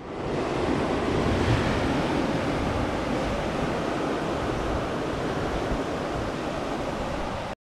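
Surf washing onto a sandy beach in a steady rush, with wind on the microphone; it cuts off abruptly near the end.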